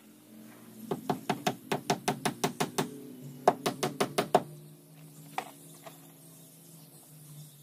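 Wooden mallet tapping a caulking iron along a plank seam of a wooden boat hull, driving fibre into the seam. Two quick runs of sharp knocks, about six a second with a short pause between, then a single knock a little after halfway, and the tapping stops.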